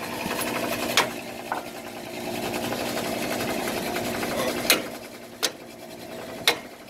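Small portable gas generator running steadily. A few sharp metallic clicks or knocks sound over it, one about a second in and three more near the end.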